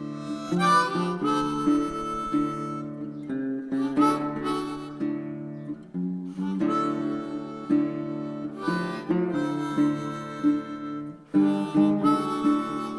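Background music: a harmonica melody over acoustic guitar, with notes and chords changing every second or so.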